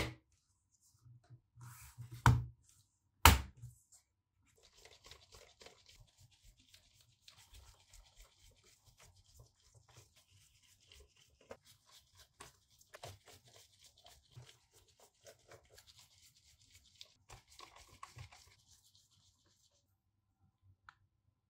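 Three sharp knocks in the first few seconds. Then a long stretch of faint scraping and small clicks from a screwdriver working the screws of a laptop's plastic bottom case, stopping near the end.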